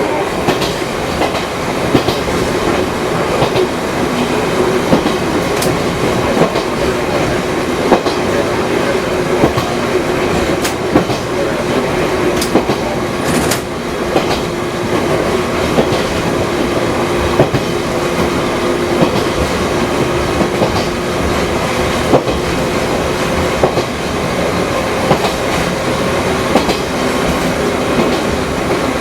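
Fukui Railway 200 series electric railcar, in service for over fifty years, running along the line: a steady rumble of wheels on rail with frequent clicks and knocks from the track and a steady hum from the drive.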